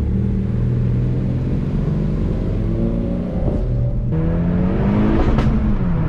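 Honda Civic Type R FK8's turbocharged 2.0-litre four-cylinder through a catless downpipe and straight-pipe exhaust, pulling under acceleration: about four seconds in it gets louder and the revs climb, then near the end a brief crack is heard and the pitch drops as it shifts up.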